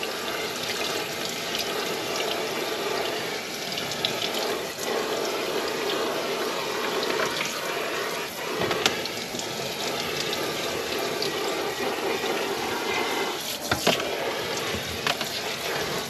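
Kitchen faucet's pull-down spray head running steadily, its spray of water hitting a mesh air-conditioner filter and splashing into a stainless steel sink, with a few sharper splashes near the end.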